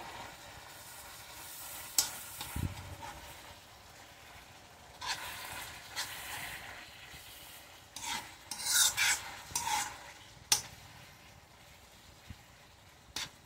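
A spatula stirring and scraping sliced beef and peppers in a stone-coated nonstick pan, over a soft sizzle from the simmering liquid. There are several scraping strokes and a few sharp clicks of the utensil against the pan.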